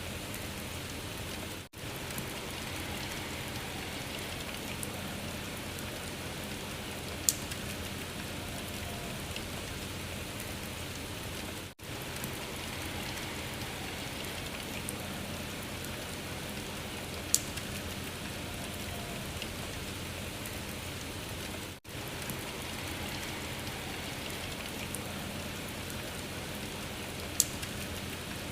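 Steady patter of rain from a loop about ten seconds long. The sound drops out briefly at each loop point, three times, and a single sharp click stands out once in every loop.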